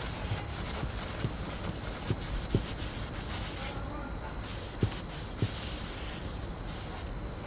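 Paper towel rubbing over the face of a new brake rotor, wiping off brake cleaner and the manufacturer's anti-corrosion shipping coating, with a few light knocks.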